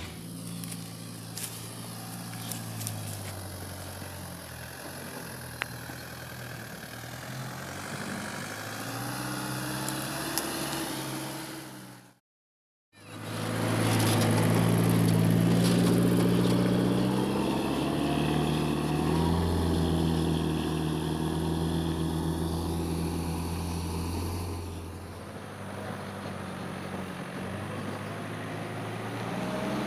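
Engine of an Isuzu light truck loaded with rubberwood logs, running under load with its pitch rising and falling. It cuts out for about a second about twelve seconds in, then runs louder for about ten seconds before easing off.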